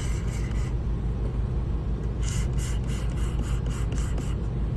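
Motorised shear sharpener humming steadily while a curved grooming shear blade scrapes against its spinning 600-grit plate, in two passes: a short one at the start and a longer one of about two seconds midway.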